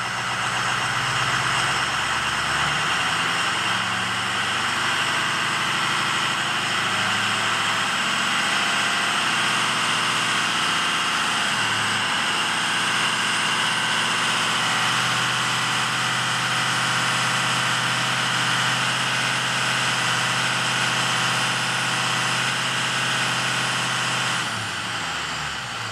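Ford 6.0 Power Stroke V8 turbo-diesel running steadily with a high-pitched whine, cold, with its number 5 cylinder running weak. Near the end the engine note and the whine fall away and the sound gets quieter.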